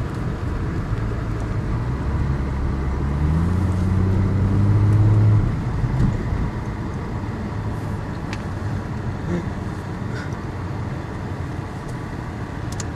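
A car engine accelerates past, its note climbing from about a second in and loudest a little after five seconds, then fades into steady road-traffic noise.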